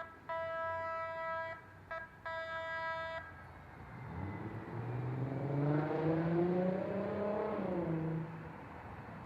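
Light-rail trolley horn blown in several blasts, the last ones long, short, long. Then the train's electric traction motors whine, rising in pitch as it accelerates, before the pitch drops and fades as it passes.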